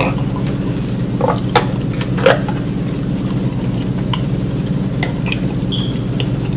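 Eating sounds: a plastic fork clicking and scraping in an aluminum foil pan of food, with chewing, a few sharp clicks about a second or two in and fainter ticks later. A steady low hum runs underneath.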